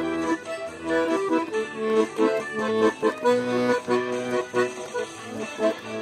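Piano accordion playing a tune: a melody of short notes over held lower bass and chord notes, with no singing.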